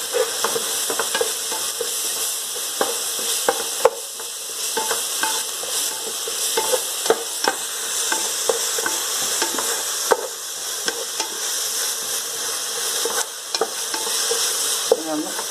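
Onions and ginger-garlic paste sizzling in hot oil in a pan, stirred continuously, with the utensil scraping and clicking against the pan at irregular intervals. The paste is being fried until its raw smell cooks off.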